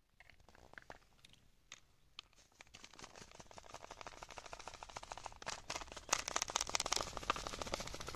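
Chilli powder being shaken out of a packet onto an aluminium tray: a few scattered ticks, then from about two and a half seconds in a dense run of fine rapid crackling that builds louder.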